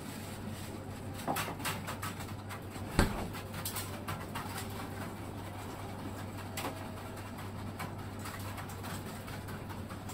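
Light clicks of chopsticks and tableware over a steady low hum, with one sharper knock about three seconds in.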